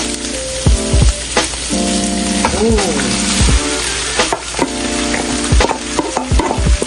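Day-old rice stir-frying in a hot oiled wok: steady sizzling, with the ladle knocking and scraping against the pan again and again as it is stirred.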